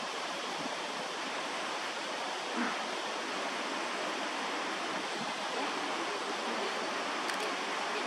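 Steady rush of running water, an even hiss that does not change.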